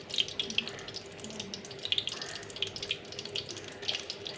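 Pakoras (gram-flour fritters) deep-frying in hot oil in a karahi: a steady sizzle full of small crackles and pops.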